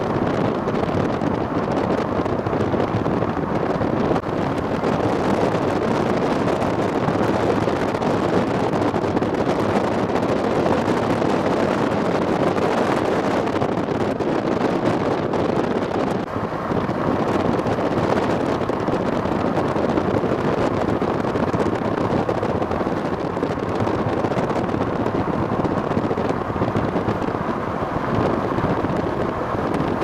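Steady wind and road noise of a moving vehicle, a constant rush with no pitch or rhythm.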